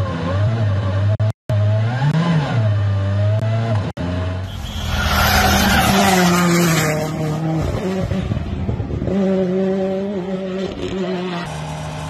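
Rally car engines at full racing load, pitch rising and falling through gearshifts, with two brief cut-outs in the first seconds. About four and a half seconds in, a Toyota GR Yaris Rally1 slides close past with a loud rushing, skidding tyre noise for two or three seconds, and then an engine runs hard at a steadier pitch.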